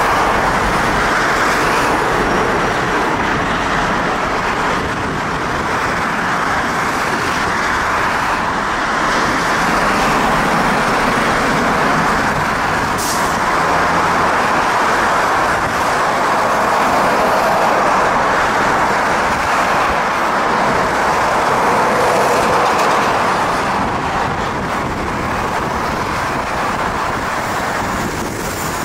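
Airbus A300 airliner's twin jet engines at takeoff power as it accelerates down the runway for takeoff: a loud, steady rush of jet noise that swells and eases slightly.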